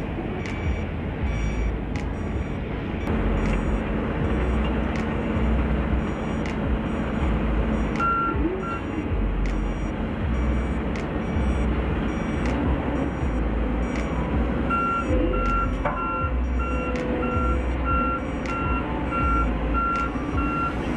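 Heavy road-construction machinery running: the diesel engines of road rollers and a motor grader rumble, with reversing alarms beeping in steady repeating patterns. A louder reversing alarm, beeping about twice a second, starts past the middle.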